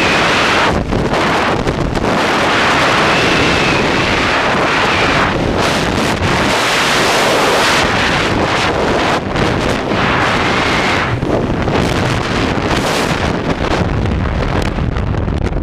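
Freefall wind rushing over a helmet-mounted action camera's microphone: a loud, steady roar whose high hiss rises and falls every second or two as the skydiver's body position changes.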